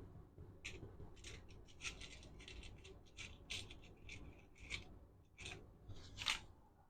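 Faint, irregular snips and rasping clicks of hand tools on electrical wire, about a dozen in all, the loudest about six seconds in.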